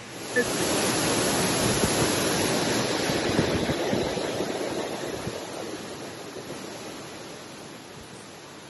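Rushing water of Wahkeena Falls, a 242-foot waterfall, heard close: a steady roar that comes in abruptly just after the start and fades gradually over the second half.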